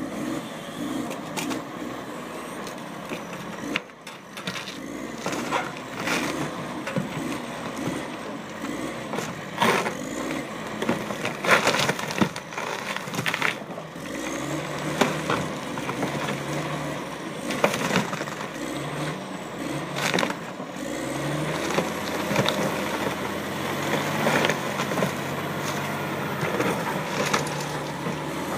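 A boat's fibreglass hull cracking and splintering in many sharp snaps as it is crushed under a Komatsu wheel loader's bucket. The loader's diesel engine runs beneath, working harder and louder from about halfway through.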